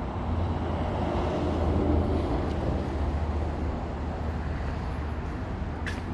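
Amano PiF60 industrial dust collector running: a steady motor and blower hum with a strong low drone, and a short click near the end.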